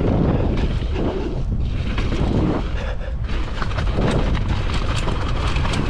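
Wind buffeting the microphone of a mountain bike speeding down a dirt trail, with short sharp clicks and rattles from the bike throughout.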